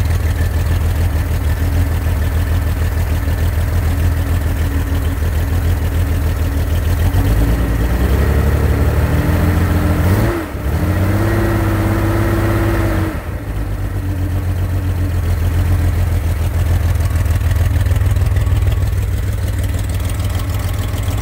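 A 2.9-litre Corvair air-cooled flat-six runs on an engine stand, still warming up from a cold start with no choke. Its pitch climbs from about seven seconds in, holds higher, then falls back a little after thirteen seconds.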